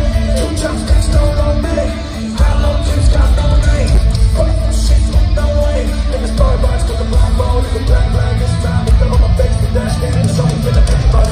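Live rock band playing loud through an arena sound system: pounding drums and distorted electric guitars. The music dips briefly about two seconds in, then comes back in full.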